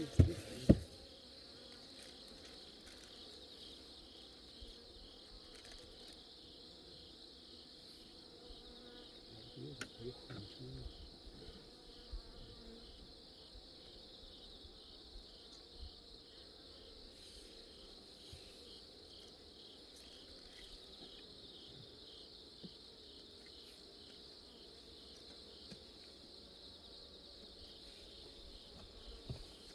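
Steady high-pitched insect chirring, with two sharp knocks right at the start and a few soft thuds about ten seconds in.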